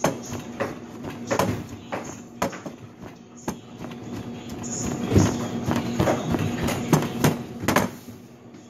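Large kitchen knife chopping food on a plastic cutting board: a string of irregular sharp knocks, one or two a second, with a short gap after about three and a half seconds.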